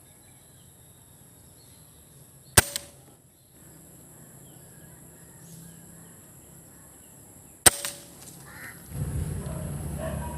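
Two shots from a PCP air rifle about five seconds apart, each a sharp crack with a brief tail. Between them is a faint, steady high hiss, and a low rumble rises near the end.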